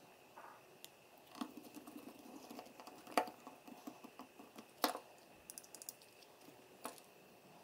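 Light ticking and a few sharp clicks, about four louder ones spread through it, as a small precision screwdriver turns tiny screws that hold a circuit board into a plastic handheld case and the case is handled.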